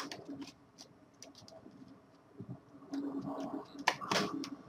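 Plastic laptop screen bezel being pried off with a pry tool: scattered sharp clicks as its clips let go, then from about three seconds in a rougher, louder rubbing of plastic on plastic.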